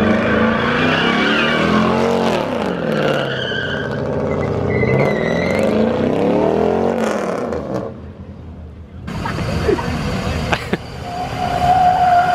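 Pickup truck doing donuts: the engine revs rise and fall while the spinning rear tires squeal. About eight seconds in the sound drops off suddenly to a quieter stretch, then builds up again.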